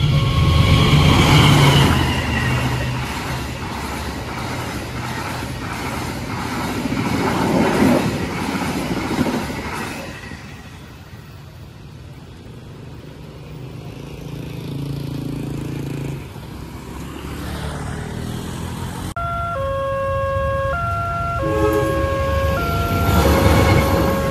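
A passenger train rolls over the level crossing, its rumble and wheel noise fading away over about ten seconds. From about nineteen seconds in, the crossing's electronic warning siren sounds in repeating, alternating tones, and a deep rumble builds near the end.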